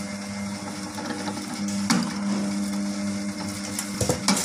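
Electric pad printing machine running with a steady motor hum, a sharp mechanical click about two seconds in and two more clicks near the end as the pad head and ink cup cycle.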